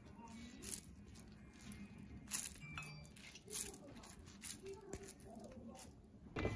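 Wet hands pressing and shaping a ball of cooked rice into an onigiri: soft, irregular squishing and crackling with a few short clicks.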